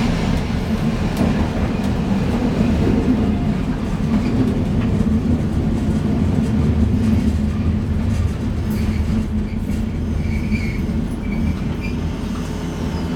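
Keifuku Electric Railroad (Randen) tram running along the track: a steady low rumble, with a few faint short squeals a few seconds before the end.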